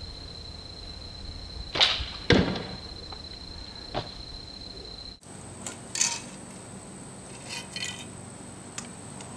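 A homemade PVC pipe recurve bow with a paracord string is shot: the string snaps forward, and about half a second later the arrow strikes the target with a louder thud. Later come a few light clicks and rattles of an arrow being handled and nocked on the bow.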